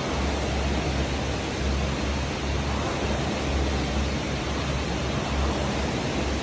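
Air-resistance rowing machine's fan flywheel whooshing steadily as it spins, swelling with each pull of the handle.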